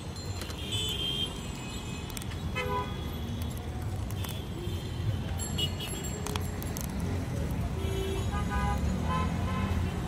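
Street traffic: a steady low rumble of passing vehicles, with short vehicle horn toots breaking in now and then.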